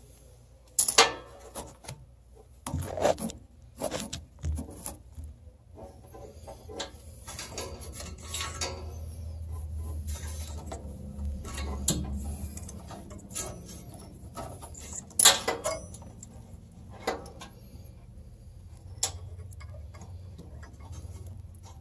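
Hands working inside a pellet stove's lower compartment, handling parts and the igniter's wire connectors: scattered clicks, knocks and light clinks, the sharpest about a second in and again near the middle, over a low rumble of handling.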